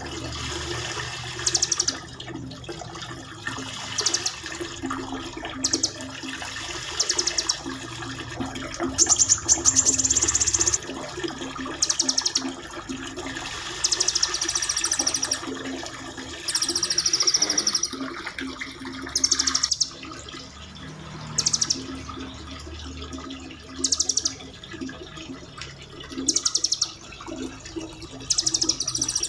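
Small songbirds singing rapid rolling trills, high-pitched bursts repeating every one to two seconds, over a steady background of running water.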